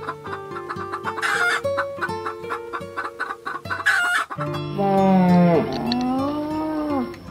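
Chickens clucking over plucked-string background music, with two short squawks about one and four seconds in. About four and a half seconds in, the music gives way to a loud, drawn-out, moo-like bellow that dips in pitch and rises again.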